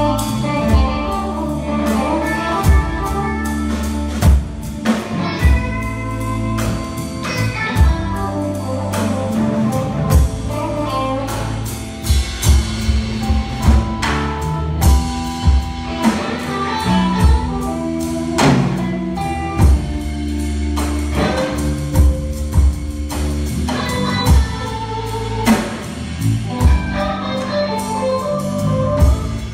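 Live blues-rock band playing, with an electric guitar and a drum kit hitting a steady beat.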